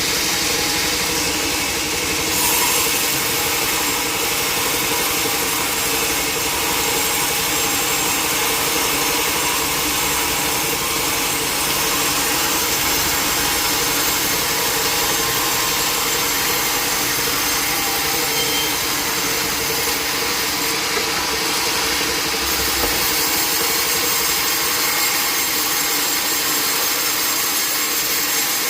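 Sawmill saw cutting through a log: a steady, loud, noisy whine with a held hum under it, unbroken throughout.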